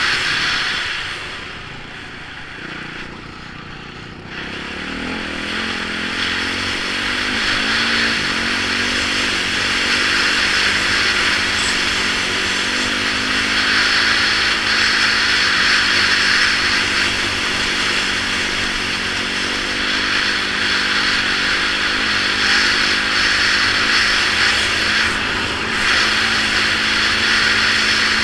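Yamaha YZ450F single-cylinder four-stroke dirt bike engine at riding speed, with heavy wind rush on a helmet camera. The engine eases off for the first few seconds, picks up again through rising revs about four seconds in, then holds a steady pace with a brief let-off near the end.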